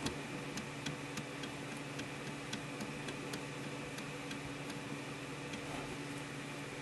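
Faint, light mechanical clicks, unevenly spaced at about two or three a second, over a steady low hum.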